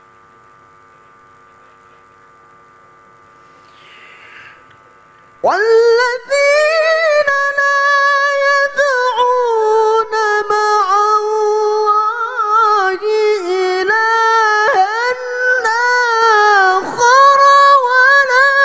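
A steady electrical mains hum, then about five seconds in a male qari begins Qur'an recitation in the melodic tilawah style through a microphone. His high voice holds long, ornamented notes with brief pauses for breath.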